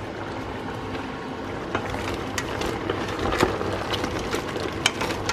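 Chili crab simmering and bubbling in a stainless steel pot. From about two seconds in, a wooden spoon stirs it, and crab shells knock and clatter against the pot.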